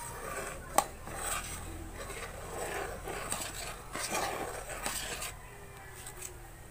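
Metal spatula scraping and clinking against an aluminium wok while stirring coconut milk being cooked down into latik, with one sharp clink about a second in. The stirring stops about five seconds in.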